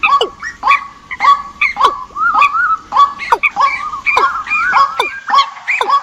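Recorded bird calls played as a trapping lure: rapid, overlapping calls, several a second, mixing short notes with calls that drop sharply in pitch.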